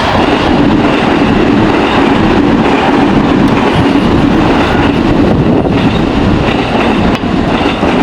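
Enoshima Electric Railway (Enoden) train running past at close range: a loud, steady rumble of steel wheels on the rails.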